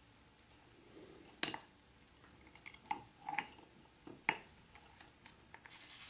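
Hard plastic scoop clicking and knocking against a ceramic mug as a Nanday conure digs baby-bird formula out with it: a handful of sharp, separate clicks, the loudest about a second and a half in.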